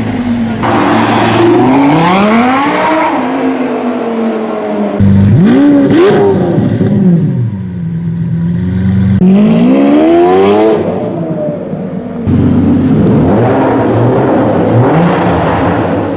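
Sports car engine revving hard several times, its pitch climbing and falling with each throttle blip, in separate loud takes that change abruptly.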